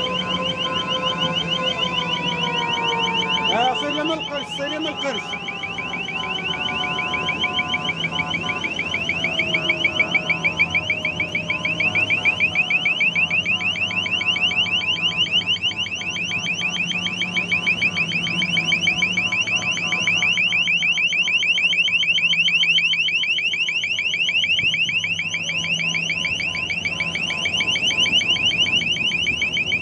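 A high, fast-warbling siren tone, held steady the whole time, with a lower tone slowly falling in pitch during the first several seconds.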